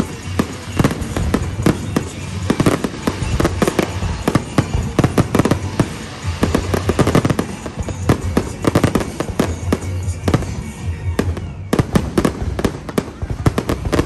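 Aerial fireworks bursting in a dense, rapid barrage: overlapping bangs and crackling with hardly a gap between reports.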